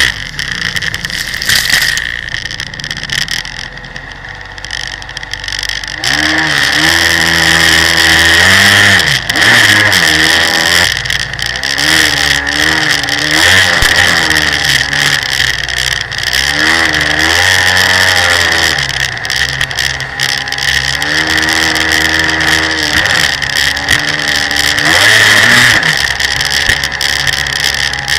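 Jet ski engine revving up and down in repeated surges as the throttle is worked, over a steady rush of water and wind. It eases off for a few seconds near the start, then pulls hard again.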